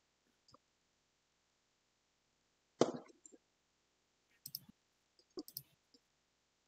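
Sparse sharp clicks and knocks over a near-silent background. The loudest is a knock about three seconds in, followed by a few shorter clicks in the second half.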